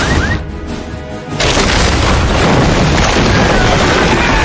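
Cartoon soundtrack of loud rumbling booms, like an eruption or a big crash, under dramatic background music; the rumble eases a little in the first second, then swells again about a second and a half in.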